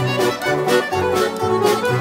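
Russian folk instrument ensemble playing a tune: balalaikas and domras strumming over a bayan (button accordion), with the contrabass balalaika keeping a steady bass beat.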